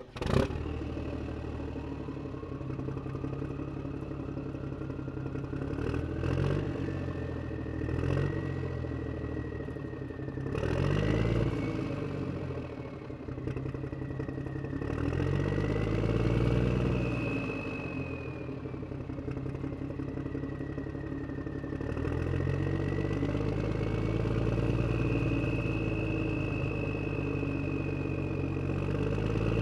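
An engine running and revving up and down every few seconds, with a high whine that rises and falls along with it.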